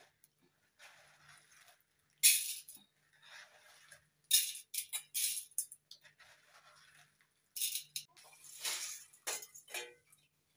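Dry cowpeas rattling as they are stirred by hand in a plastic basin and scooped into a metal pot lid, in several loud bursts of clatter with quieter rustling between.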